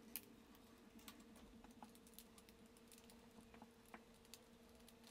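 Near silence with faint, irregular small clicks and taps as hands handle the thin metal frame and cabled parts of a laptop's LCD panel, over a faint steady hum.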